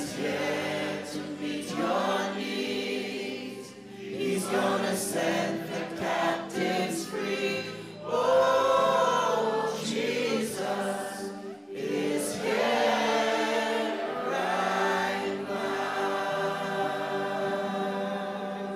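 Gospel worship song sung by a group of voices, led by singers on microphones, with steady held notes underneath.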